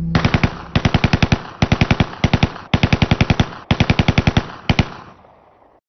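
Automatic weapon firing seven short bursts at about ten rounds a second, with the echo fading away after the last burst.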